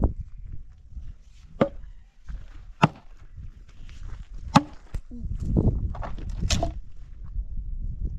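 Wood being chopped: four sharp, separate strikes a second or two apart, the last followed by a few smaller knocks.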